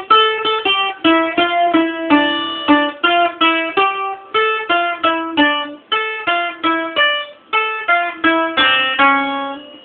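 Bouzouki playing a zeibekiko melody as quick single plucked notes, about three or four a second.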